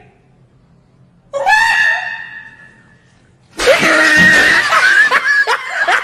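A man laughing hysterically: a long, high wailing cry about a second in that fades away, then loud screaming laughter broken into rapid yelps from a little past halfway.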